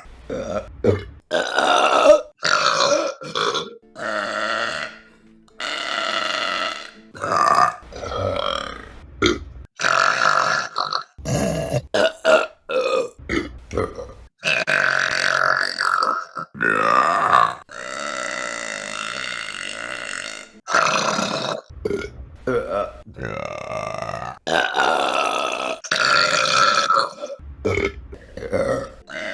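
A woman burping over and over, a long run of voiced burps one after another, some short and several long and drawn-out.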